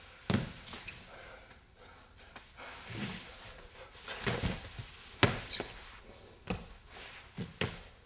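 Irregular thuds, knocks and scuffs of a dancer's body and sneakers against the floor as he shifts from sitting to a crouch, with a short high sneaker squeak about five and a half seconds in.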